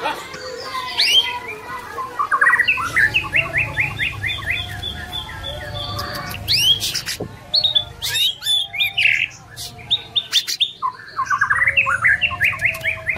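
White-rumped shama (murai batu) singing: fast runs of repeated rising notes alternating with loud whistled glides and chattering phrases.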